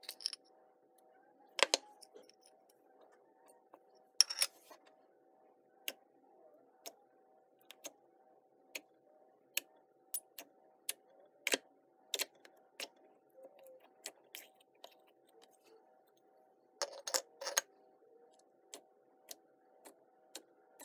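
Pink glitter slime in a small plastic pot being poked and squeezed by fingers, making sharp irregular clicks and pops about once a second over a faint steady hum.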